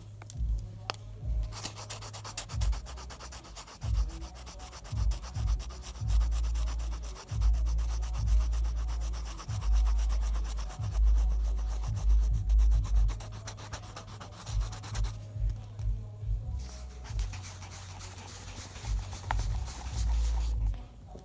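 Rubber eraser scrubbing rapidly back and forth on paper over pencil shading, lifting graphite to lighten the hair; the scrubbing is strongest for most of the first fifteen seconds, then fainter, over dull low bumps of the hand and paper.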